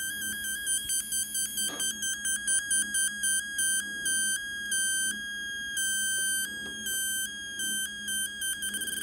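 Atari Punk Console synthesizer's 10-step sequencer playing a buzzy electronic square-wave tone. The pitch holds steady while the tone colour steps through the sequence in a choppy, stuttering rhythm: quick steps at first, slower steps in the middle, quicker again near the end, as the step knobs are turned.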